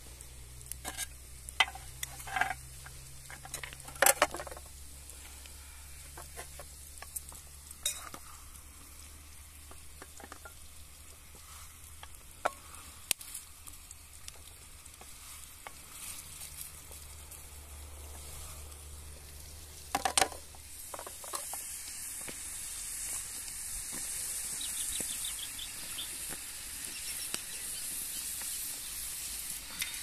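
Food sizzling as it fries in a pan, with scattered clinks and scrapes of a utensil stirring it. The sizzle grows louder about two-thirds of the way in.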